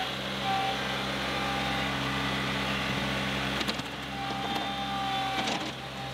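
John Deere 2038R compact tractor's three-cylinder diesel engine running under load while its front loader digs with a tooth-bar bucket and dumps a scoop of dirt. A thin whine comes and goes with the loader's movement, and a couple of sharp knocks sound in the second half.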